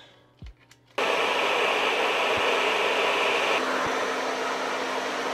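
Hand-held hair dryer switched on about a second in and blowing steadily: a loud rushing hiss over a low hum. The upper part of the hiss eases a little about two and a half seconds later.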